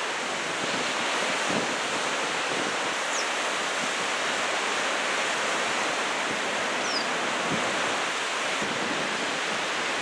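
Steady rush of ocean surf, waves breaking and washing in on a swell raised by an approaching typhoon, with wind on the microphone. Two faint short high chirps, about three and seven seconds in.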